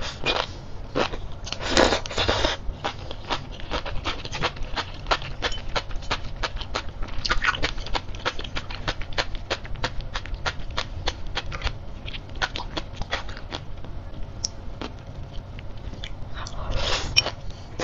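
Sea grapes being chewed: a rapid, irregular run of crisp little pops as the beads burst in the mouth, with a few louder, longer bursts as fresh mouthfuls of strands are taken in.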